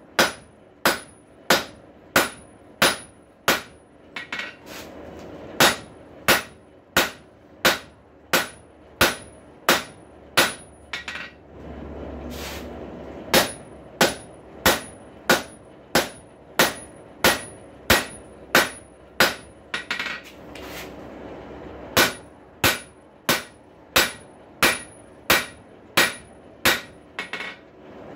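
Hand hammer striking hot steel on an anvil in steady half-face blows, about one and a half a second, each with a high ring, in three runs with short pauses between. The blows are setting down an offset in a rail spike over the anvil's edge.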